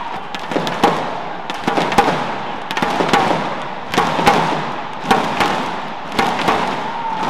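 Arena crowd beating out a steady rhythm, two sharp beats roughly every second, each ringing out in the hall.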